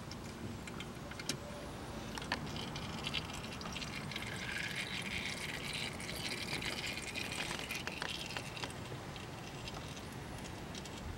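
Used engine oil trickling and dripping from a just-removed spin-on oil filter into a catch tin, the trickle strongest in the middle, with a few light clicks and knocks of the filter against the tin.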